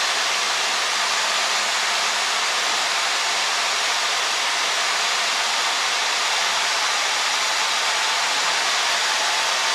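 Steady cabin noise of a single-engine Cessna in flight, engine and airflow blended into an even hiss with little deep rumble.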